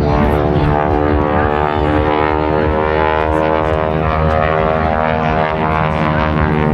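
Aircraft running steadily, a loud, unbroken drone made of many steady tones over a low rumble.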